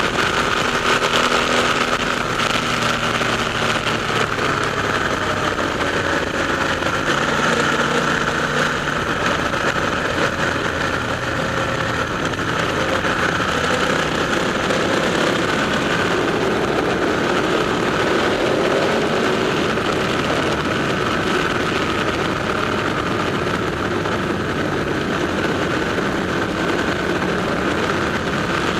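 Ducati motorcycle engines running steadily in a tunnel, a continuous engine noise with faint pitch changes now and then.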